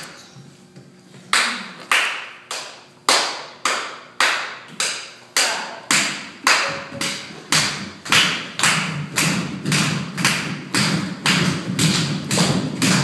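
Hand claps keeping a steady beat, about two a second, echoing in a large bare room; the beat starts about a second in and quickens a little in the second half.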